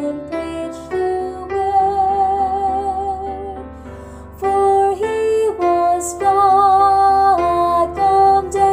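Slow, gentle music: a melody of long held notes, some with vibrato, over soft chord accompaniment.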